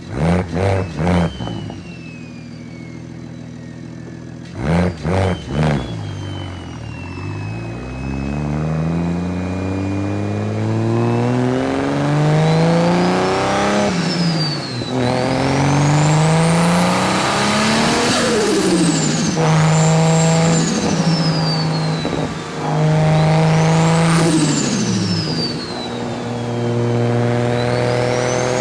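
Stage-4-tuned BMW engine being revved: three quick blips at the start and three more about five seconds in, then several long climbs in revs, each held briefly before dropping. A high whine rises and falls with the revs.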